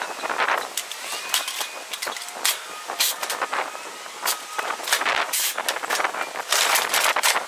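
A busy run of irregular sharp knocks and clatter, several a second, with no steady engine note under it.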